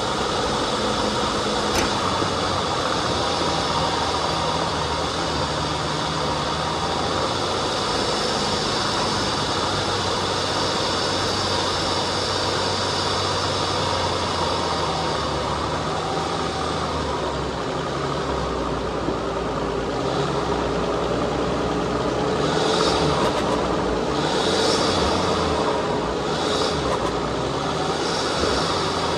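Off-road vehicle's engine running steadily at low speed on a dirt trail. Near the end come several short hissing scrapes.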